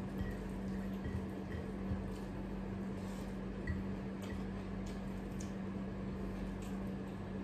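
Fingers mixing cooked rice with a wet curry on a plate and chewing, soft squishy eating sounds with small scattered clicks, over a steady low hum.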